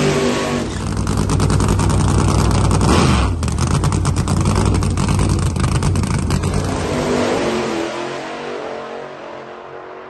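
Pro Nitrous drag car's nitrous-fed big-block V8 by Pat Musi Racing Engines at full revs through a burnout and the launch, with a dense crackle. It fades from about seven seconds in as the car pulls away down the track.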